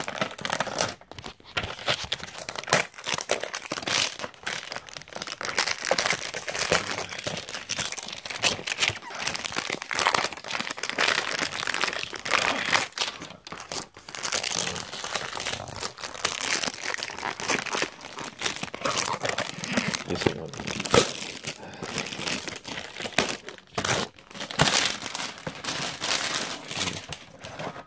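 Crinkling and rustling of a goblet's cardboard gift box and plastic packaging being opened by hand, with many small clicks and knocks throughout.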